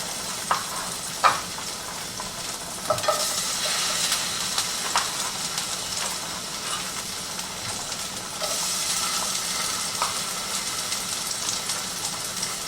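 Sliced zucchini sizzling in hot garlic oil in a frying pan, with a utensil clicking against the pan now and then as it is stirred. The sizzle gets louder about eight seconds in.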